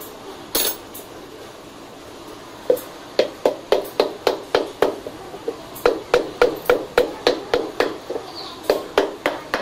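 An empty plastic lead-acid battery case, held upside down, knocked repeatedly against the floor: a run of sharp knocks about three a second with a short break midway, shaking loose the residue left in its cells. A short scrape comes under a second in.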